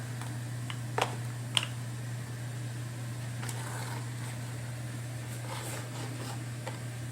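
Steady low hum with a few light clicks, the clearest about a second in and again half a second later, from the stick vacuum's plastic parts being handled.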